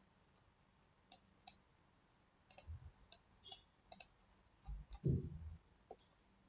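Faint, scattered computer mouse clicks, about a dozen irregular ones, with a dull low thump in the middle and a louder one about five seconds in.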